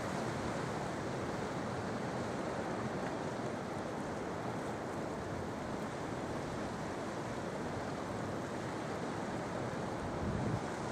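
Sea surf washing in and breaking on the shore in a steady, continuous rush, with one wave surging a little louder near the end.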